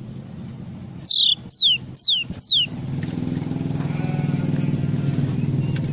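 A glatik songbird gives four quick whistles, each sliding down in pitch, in the first half. Then a low engine hum, like a motorbike running, builds and carries on under it.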